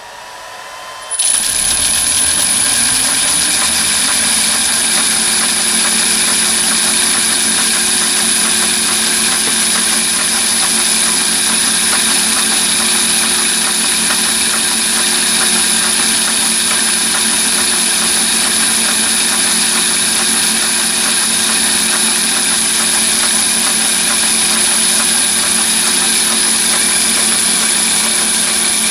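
Three-phase 1 hp electric motor on a VFD spinning up about a second in, then running at steady speed and driving the mini lathe's spindle through its belt and pulleys, with a constant high-pitched whine.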